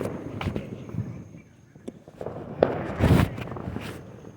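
Fireworks going off: a scatter of sharp pops and bangs, the loudest a longer burst about three seconds in.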